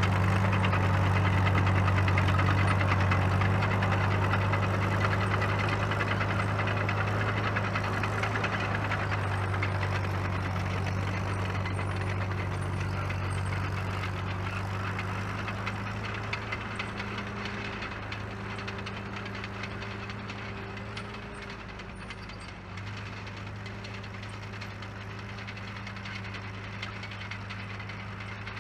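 1949 Caterpillar D2 crawler's four-cylinder diesel engine running at a steady speed as the dozer drives away, slowly fading. It runs evenly, as it should.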